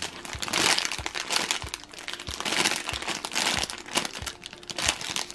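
Clear plastic packaging bag crinkling in repeated bursts as hands squeeze a squishy toy through it.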